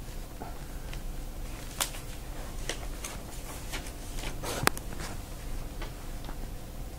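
Ink brush writing on paper: faint irregular ticks as the brush tip meets and leaves the sheet, with a short swish of a stroke ending in a sharper click about four and a half seconds in. A low steady hum sits underneath.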